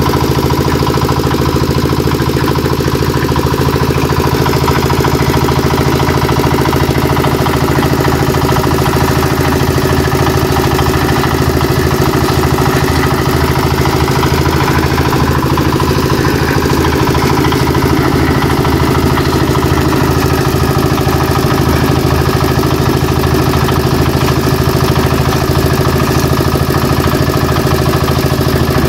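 Engine of a concrete mixer running steadily at one speed.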